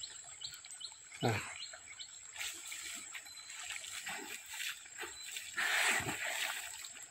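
Water splashing and sloshing as a bull and a man swim side by side through a muddy pond. A short cry slides down in pitch about a second in, and a louder splash comes near the end.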